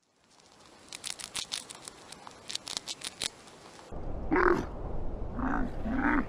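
A pet rat crunching dry food, a quick run of small crisp clicks. About four seconds in, this gives way to camels making about three short calls over a low steady rumble.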